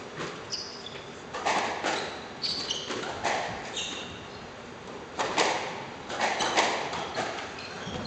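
Squash rally: the ball cracks off rackets and walls every second or so, with short squeaks of shoes on the wooden court floor between the hits.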